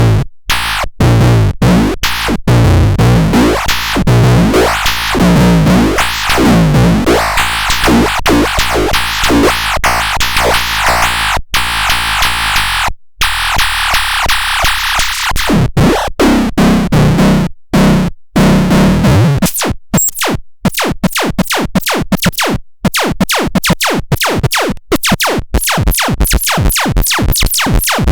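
A miniature drum synthesizer playing electronic drum and synth sounds: pitched bass notes with falling sweeps, broken by a couple of brief cut-outs, then from about two-thirds of the way in a fast stuttering run of short hits that speeds up.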